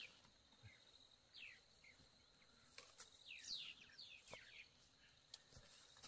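Faint bird chirps: short, quick downward-sweeping calls, one near the start, one or two about a second and a half in and a cluster around the middle. Underneath is a thin, steady high tone and a few soft clicks.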